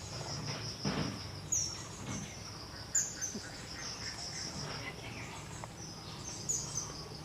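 Crickets chirring in a steady, pulsing high trill, with a few short, sharp bird chirps over it, the loudest about a second and a half in and at three seconds.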